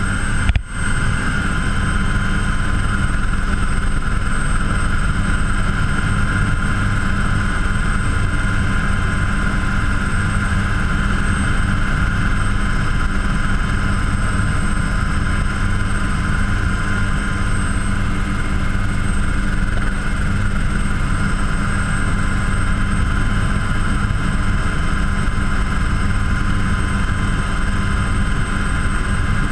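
Helicycle single-seat kit helicopter in flight, heard from inside the cockpit: a steady turbine whine made of several high tones over a strong low drone of rotor and engine. The audio briefly drops out about half a second in.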